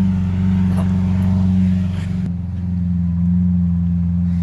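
Car engine idling with a steady deep note; the lighter background hiss drops away suddenly about two seconds in.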